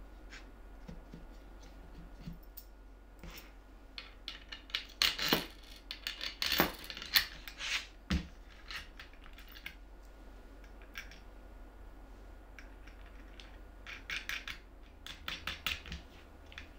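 Plywood jig parts handled, swung on their bolted pivots and set down on a cutting mat: scattered light clicks and wooden knocks in two busy spells, the loudest about five to seven seconds in, with a dull thud about eight seconds in.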